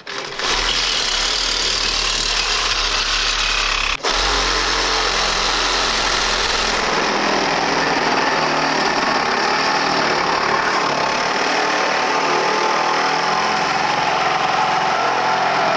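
Reciprocating saw running steadily while cutting through the steel frame of a burned trailer, broken by a brief dip about four seconds in.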